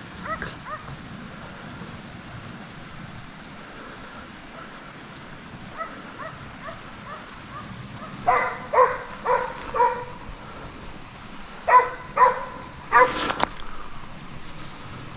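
Hunting dogs barking: faint, high yelps at first, then a quick run of four loud barks about eight seconds in and three more around twelve seconds in.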